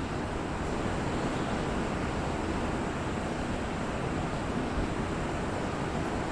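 Steady rain with wind: an even, continuous rushing noise.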